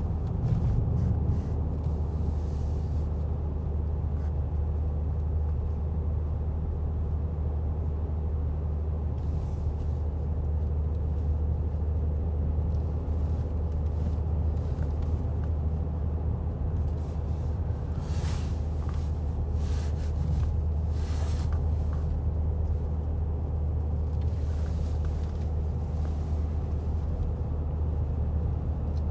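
Steady low rumble of engine and tyre noise inside a car's cabin while driving along a road, with a faint steady hum. A few brief hisses rise and fall in the latter half.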